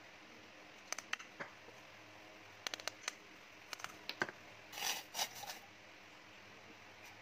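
Light clicks and taps of a plastic measuring spoon against a small bowl as green tea powder is spooned in. A short scraping rustle comes about five seconds in.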